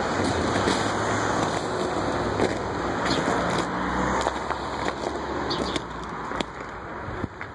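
Road traffic going by: the even rush of a passing car's tyres and engine, easing off over the last couple of seconds, with a few short high chirps on top.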